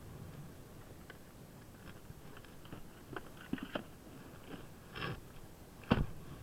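Faint rustling and small clicks of items being handled in a Kymco Downtown 300i scooter's under-seat storage compartment, then one solid thump just before the end as the seat is pressed shut.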